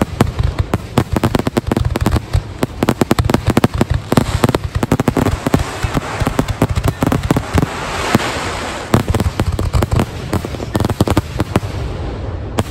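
Dense, rapid barrage of aerial firework shells launching and bursting, many sharp reports a second overlapping one another. About eight seconds in the bangs thin briefly under a stretch of crackling hiss.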